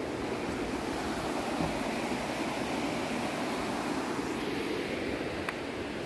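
Steady rush of the Soča river flowing over its rocky bed, with a faint click near the end.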